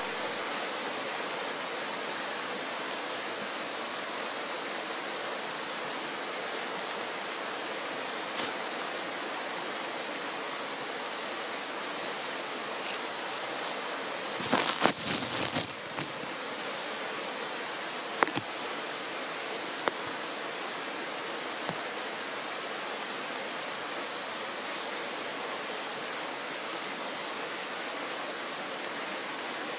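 Kirowa Woda mountain stream rushing over a stony bed: a steady, even hiss of running water. A few brief sharp clicks stand out, with a louder cluster of them about halfway through, and a few short high chirps come near the end.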